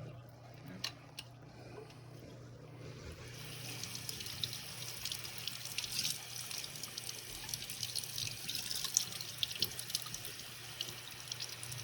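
Tap water running and spattering in a sink as a dirty furnace condensate trap is flushed out under it; a few light clicks come first and the water starts about three seconds in.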